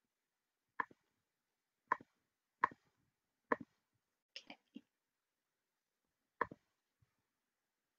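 Computer mouse clicking, about seven sharp clicks at irregular intervals of roughly a second, with near silence between them.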